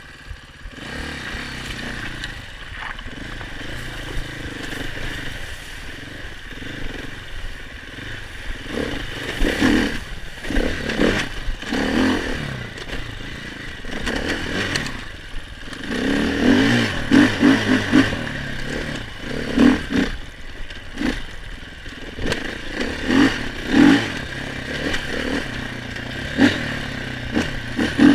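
KTM 500 EXC enduro motorcycle's single-cylinder four-stroke engine revving in repeated surges, the revs rising and dropping again and again, with clattering and scraping over it. The surges grow louder and choppier in the second half.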